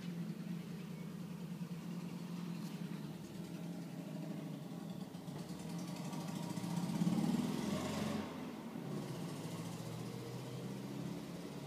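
A motor vehicle engine running steadily with a low hum, growing louder around seven seconds in and dropping back about a second later.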